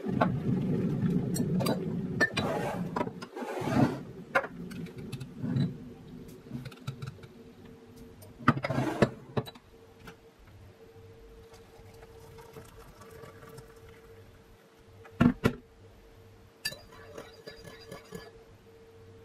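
Tea being made with a Breville electric kettle: the kettle rumbles loudly near the boil for the first few seconds, then fades. Knocks and clicks of the kettle and mug follow, with a faint hiss of pouring water. Near the end a metal teaspoon clinks repeatedly against a ceramic mug as the tea is stirred.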